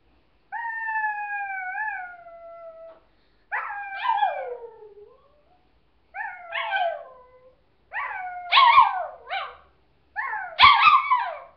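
A dog howling: one long drawn-out call held steady, then a run of shorter calls that each slide down in pitch, the last two loudest. A couple of low thumps come near the end.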